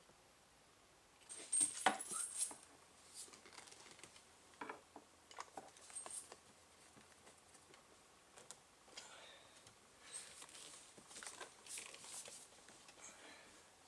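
Handling noises at a car's steering wheel: scattered clicks, taps and rustles as hands grip and turn the wheel, with a brief metallic jingle about two seconds in.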